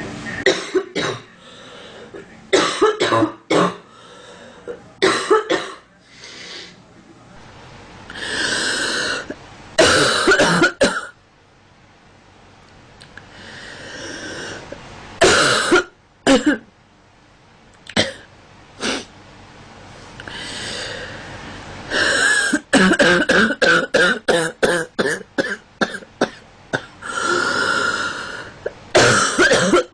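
A girl coughing in repeated fits: short, sharp coughs in clusters, with longer drawn-out noisy breaths between fits. A long run of rapid coughs comes about three quarters of the way through.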